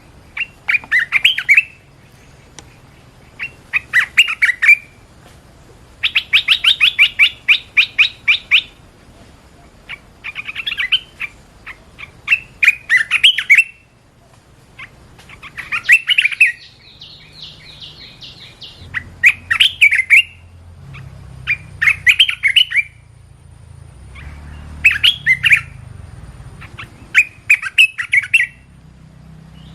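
Bulbul calling: short bursts of quick, chattering whistled notes repeated every couple of seconds, with a longer rapid trill now and then.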